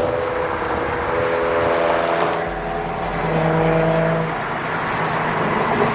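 Car engines and exhausts running steadily, making a sustained pitched drone over a rough, noisy rumble.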